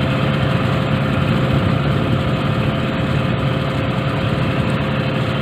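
Tour boat's engine running steadily while under way, a constant hum with no change in speed.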